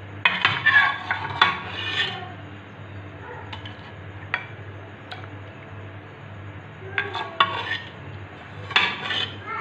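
A spoon clinking and scraping against a cooking pot or dish in three short bouts, with a few single taps between them. A low steady hum runs underneath.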